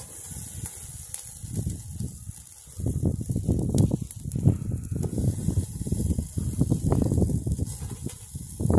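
A wood-gas camp stove's fire burning in the wind: a steady hiss, with irregular low rumbling gusts of wind on the microphone that grow heavier about three seconds in.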